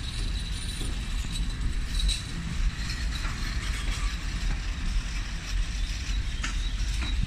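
Train moving along the tracks: a steady low rumble with a few short clicks and a faint high squeak.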